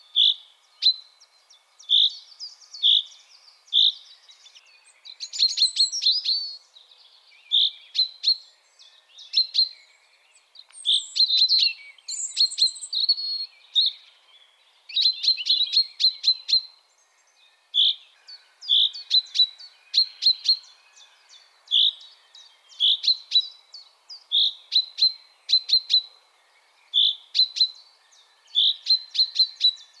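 Male common chaffinch singing: short, clear notes repeated about once a second, broken by several quick trilled phrases.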